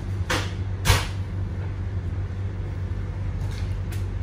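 Steady low hum of a train carriage, with two sharp clinks in the first second from a metal spoon knocking against a ceramic soup bowl, and a couple of fainter clicks near the end.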